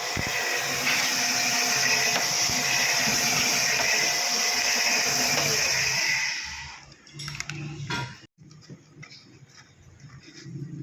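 A machine running with a steady hissing whir that dies away about six and a half seconds in, followed by quieter clicks and knocks.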